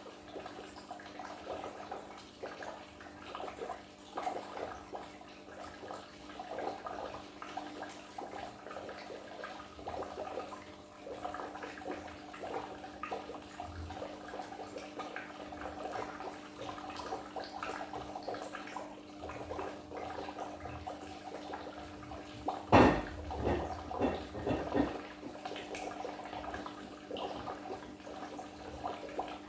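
Goldfish aquarium water bubbling and trickling steadily over a steady low hum. About three-quarters of the way through there is a sudden loud burst of sound, followed by a few smaller ones.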